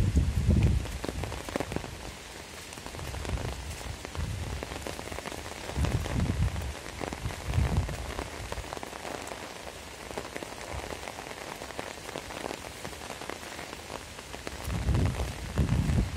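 Heavy rain falling in a steady hiss, with gusts of wind rumbling on the microphone a few times, strongest near the start and near the end.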